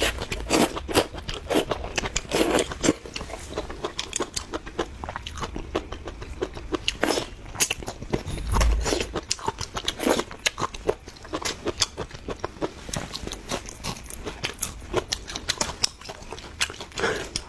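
A person chewing and biting sautéed water spinach: a dense run of crisp crunches and wet mouth sounds.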